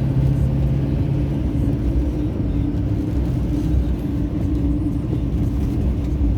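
Car driving, heard from inside the cabin: a steady low rumble of engine and road noise with a droning hum. A lower hum drops away about a second and a half in.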